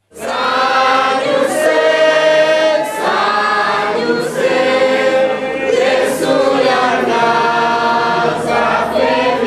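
A congregation singing a hymn together, many voices in chorus holding long notes.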